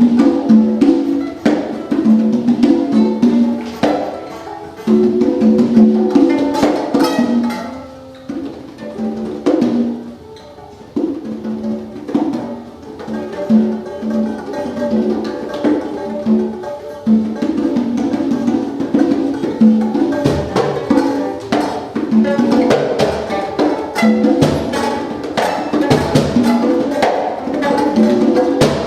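Free-improvised live music driven by hand percussion, with a steady patter of short strikes and repeated short pitched notes. It thins out and gets quieter for a few seconds about a third of the way in, then builds back up.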